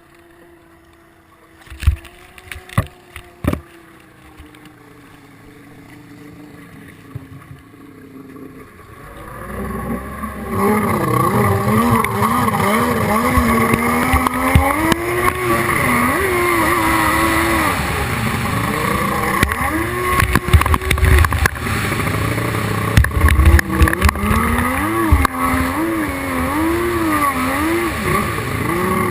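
Hydrospace 1100 racing jet ski engine, faint and steady at first, then loud from about ten seconds in, its pitch swinging up and down again and again as the throttle is worked. A few sharp knocks sound near the start.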